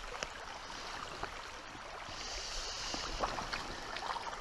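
Shallow river water running steadily over a stony bed, with scattered faint ticks and a brief high hiss about two seconds in while a hooked trout is played and brought to the landing net.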